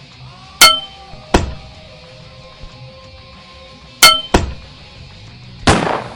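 Homemade foley fight effects: two sharp metallic clangs with a ringing tone, each followed a moment later by a dull thud, then a short hissing whoosh near the end, over a faint music bed.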